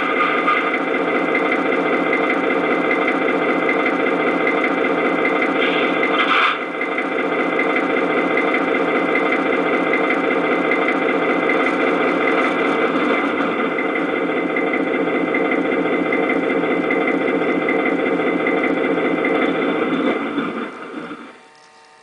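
The onboard sound system of a large-scale model B&O E8 diesel locomotive, playing a diesel engine running steadily through its small speaker, with a brief change about six seconds in. Near the end the engine sound winds down and stops.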